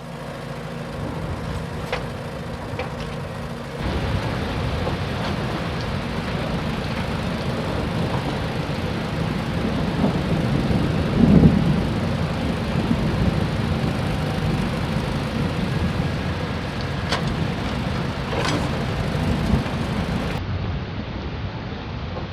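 Steady rushing noise of heavy water with a deep rumble, swelling about halfway through and changing in character about four seconds in and again near the end.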